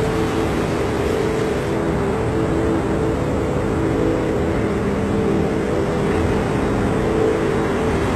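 A steady, unchanging drone: a dense rushing noise with a low held hum of several tones beneath it.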